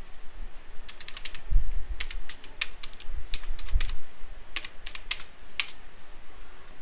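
Computer keyboard keys clicking in an irregular run of keystrokes as a web address is typed, with a few low thumps mixed in. The clicking stops about a second before the end.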